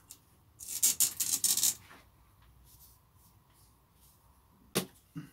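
Garden cane being pushed down into compost in a large plastic container: about a second of scraping and rustling, then two short knocks near the end.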